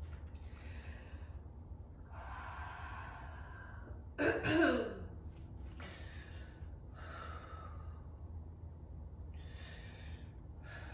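A person breathing audibly while moving through yoga poses: a series of long, hissing inhales and exhales about a second each, with one louder voiced exhale falling in pitch about four seconds in. A steady low hum runs underneath.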